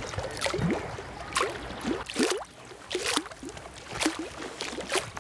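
Shallow water lapping and gurgling against the sealed case of a floating electrofisher, in irregular small splashes about once or twice a second.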